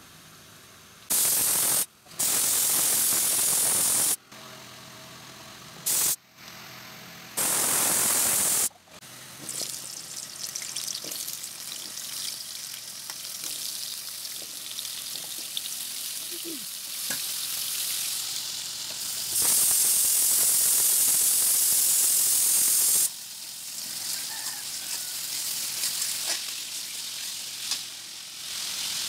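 A pressure cooker on a gas burner vents steam in several loud hissing blasts that stop and start abruptly. After that, potato chunks sizzle and crackle as they fry in oil in an aluminium karahi and are turned with a metal spatula. A louder stretch of hissing comes about two-thirds of the way through.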